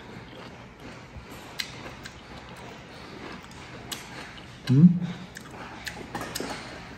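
Scattered light clicks and taps of wooden chopsticks against ceramic dishes while someone eats, with a man's brief low voice sound about five seconds in.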